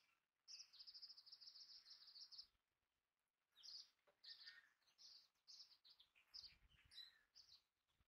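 Faint high-pitched chirping calls: a rapid trill lasting about two seconds, then a string of separate short chirps.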